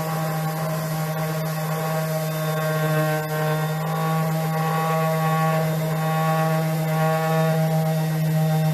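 Electric power sander running steadily, its sanding pad working across the wood of a bench.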